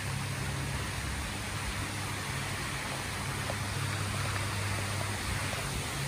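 Steady rushing of water from an artificial waterfall pouring over a rock wall into a pool, with a low, even rumble underneath.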